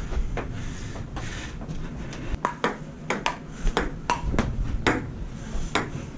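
Table tennis ball clicking off the paddles and the table during play: a string of sharp ticks, many in quick pairs of a table bounce and a paddle hit.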